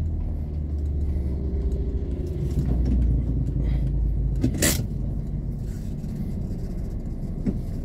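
Low, steady rumble of a heavy road vehicle's engine, strongest around the middle. A short sharp hiss comes just before five seconds in.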